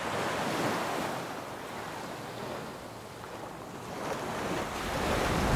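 Ocean surf washing over a rocky shore, a steady rush that swells louder near the end.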